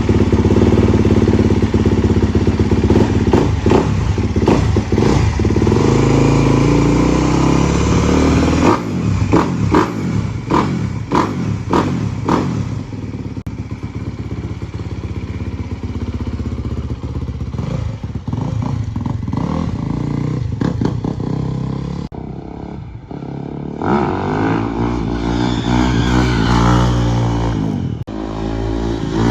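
Dirt bike engine running just after being started, on a test run after its air filter was cleaned, re-oiled and refitted. It runs steadily, then gives a quick run of sharp throttle blips, settles back, and near the end is revved up and down several times.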